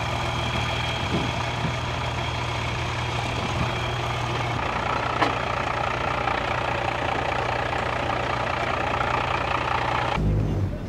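Bus engine idling steadily, with one brief click about halfway through.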